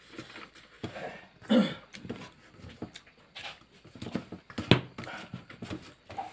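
Eating by hand from a steel plate: chewing and mouth sounds and fingers scraping rice across the metal plate, with many small clicks. A short sound falling in pitch comes about a second and a half in, and a sharp knock, the loudest sound, comes about three-quarters of the way through.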